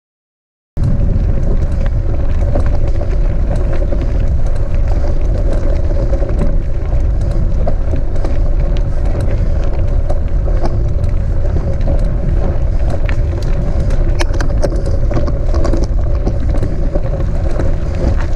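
Mountain bike riding up a gravel track, heard on a bike-mounted camera: a loud, steady rumble of wind and rolling noise on the microphone with scattered clicks and rattles from the rough surface. It starts about a second in, after a brief silence.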